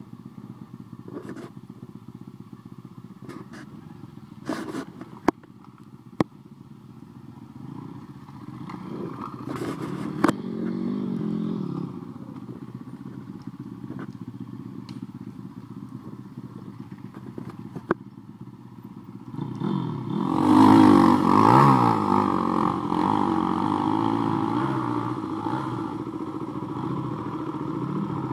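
Pit bike engines running on a dirt trail: faint at first with a few sharp clicks, swelling briefly midway, then loud revving from about two thirds of the way through as the bikes come close.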